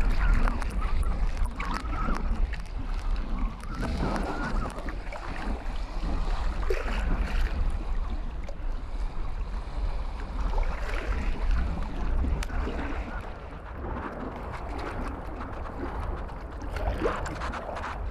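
Wind buffeting the microphone in a steady low rumble, with lake water lapping and sloshing around people wading in the shallows.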